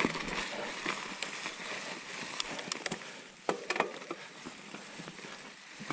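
Steady rushing of a shallow creek, with a few scattered clicks and knocks about halfway through.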